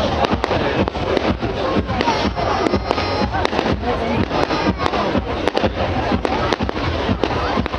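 A fireworks display going off, with many sharp bangs and crackles in quick succession.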